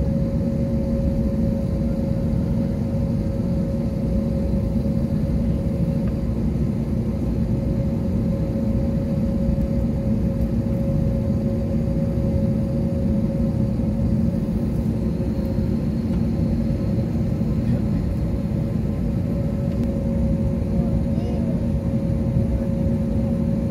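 Steady drone of a jet airliner heard from inside the passenger cabin while it waits on the ground for takeoff: a deep even rumble with a constant whine held throughout.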